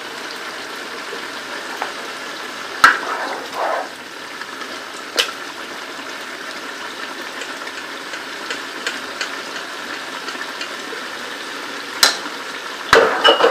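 Chicken sizzling steadily in a pot, with a few sharp spoon knocks and a short scrape as ground masala paste is added.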